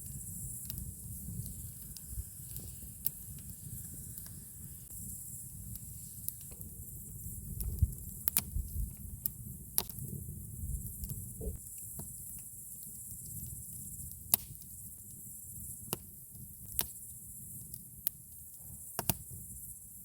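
Campfire crackling: burning wood gives sharp pops at irregular intervals, a dozen or so, some in quick pairs, over a steady low rumble.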